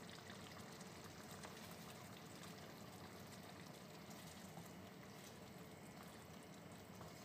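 Faint steady simmering of sauce in a wok on a gas stove, with soft sounds of cooked noodles being added and stirred in.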